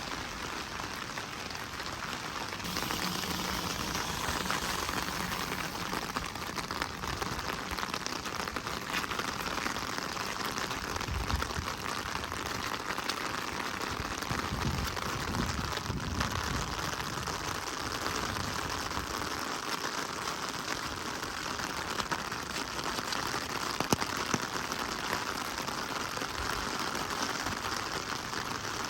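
Steady rain falling: an even hiss with a dense patter of drops. A low rumble swells about eleven seconds in and fades a few seconds later, and a single sharp tick comes near the end.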